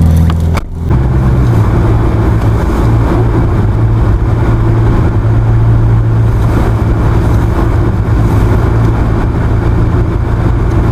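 Subaru's boxer engine running steadily as the car drives through deep, unplowed snow, with a short break in the sound about half a second in.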